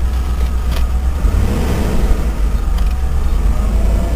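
Range Rover's fuel-injected Rover 3.5-litre V8 running steadily as a low, even rumble, its mixture richened a click so that it idles without dropping out.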